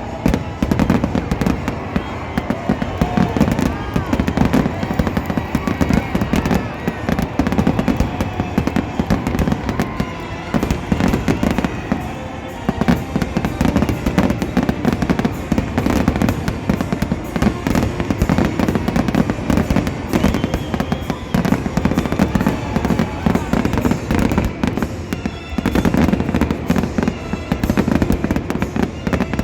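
Fireworks going off in quick succession, a near-continuous barrage of bangs and crackling.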